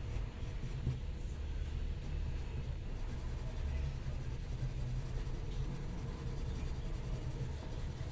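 Coloured pencil scratching on drawing paper, over a low steady rumble.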